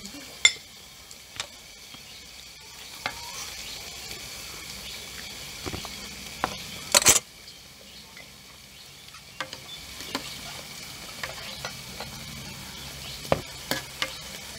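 Marinated beef sizzling steadily on a tabletop dome grill pan (mookata), with scattered clicks and clinks of utensils against the pan and plates. A louder clatter comes about halfway through, and a few more clicks come near the end.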